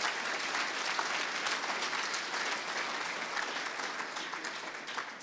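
Audience applauding, a steady patter of many hands clapping that slowly dies down near the end.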